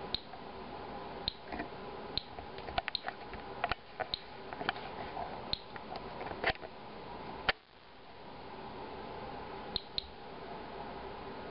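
Inspector Alert Geiger counter (pancake Geiger-Müller tube) clicking at random, unevenly spaced intervals, each click one detected ionizing event. The count is near background, from background radiation and possibly from a beer filter checked for fallout. A steady faint hum runs underneath.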